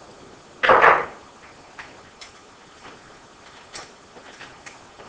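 Work on an A-bike's rear brake cable clamp with a screwdriver: a short loud scrape about a second in, then scattered light clicks of the tool and small metal parts as the clamp is loosened.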